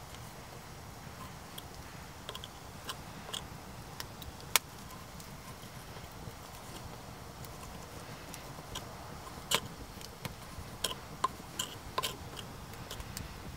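A kitchen knife cutting bacon on a wooden board, the blade tapping the wood in irregular sharp clicks, denser in the second half, mixed with the crackle of a small split-ash campfire.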